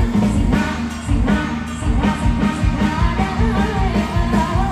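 Live band music, loud, with a steady drum and bass beat and a melody line over it.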